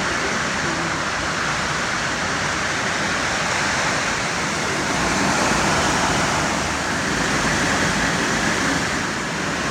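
A steady, even rushing noise with no clear rhythm or pitch, a little louder about halfway through.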